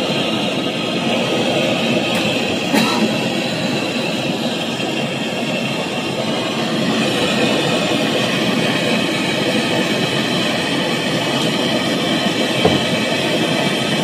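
Handheld gas torch burning with a steady, loud rushing hiss. The flame is heating the brazed copper pipe joint on a refrigerator compressor to red heat, to melt the braze so the pipe can be pulled free.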